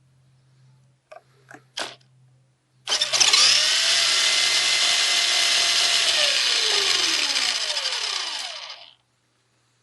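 An RC car's electric motor and drivetrain running on a pack of 128 parallel 9 V batteries: a few short clicks, then the motor starts suddenly and runs flat out with a loud whine, winding down in falling pitch before it stops.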